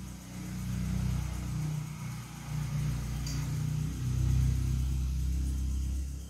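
A motor engine running, its pitch rising and falling in steps as if revving. There is one light metallic clink about three seconds in.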